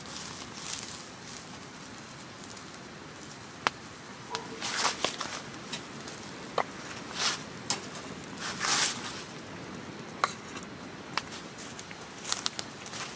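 Wood fire crackling in a steel firepit, with scattered sharp snaps and several short hissing bursts.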